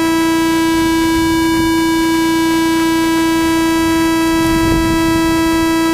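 A loud, steady whine at one unchanging pitch with many overtones, held without a break.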